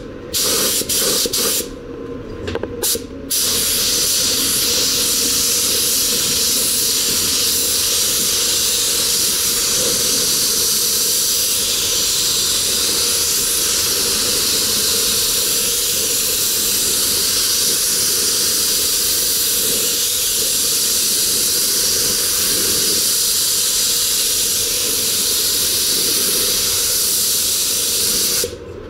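Gravity-feed paint spray gun hissing as compressed air atomises blue paint onto a car fender. The trigger is pulled in a few short bursts in the first three seconds, then held for one long unbroken spray that stops briefly near the end.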